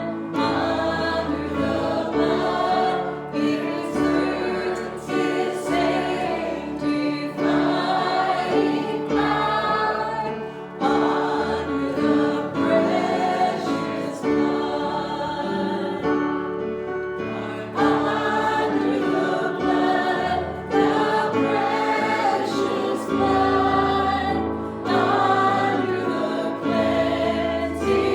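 A group of voices singing a hymn together over sustained low accompanying notes.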